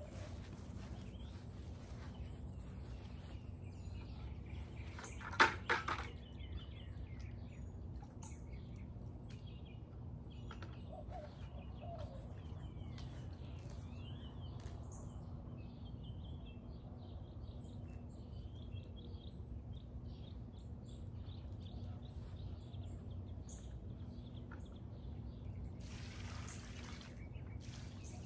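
Small birds chirping over a steady low hum, with a couple of sharp knocks about five seconds in, the loudest sounds here. Near the end comes a two-second splash of water poured from a bucket onto a plant.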